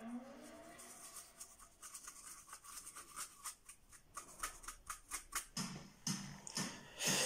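Paintbrush bristles scrubbing and dabbing on canvas: a run of short, scratchy strokes, a few a second, getting louder in the second half.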